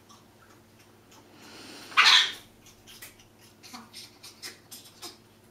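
Congo African grey parrot making a harsh hissing noise: a breathy hiss builds for about half a second, then breaks into one short, loud, raspy burst about two seconds in. Light clicks and scratches sound around it.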